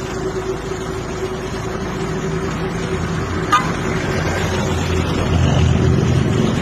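Idling motor-vehicle engine with street traffic: a steady hum with a low rumble that grows stronger about five seconds in. A single sharp click about halfway through.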